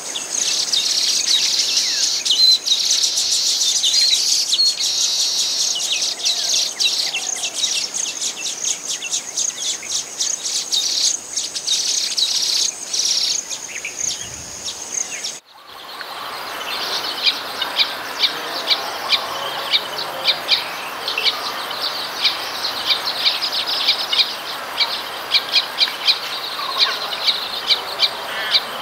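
Weaver birds chirping and chattering rapidly, many short calls overlapping, with a faint steady high tone behind them. About halfway through the sound cuts out for a moment. It resumes as a brisk, fairly regular run of chirps over softer chatter.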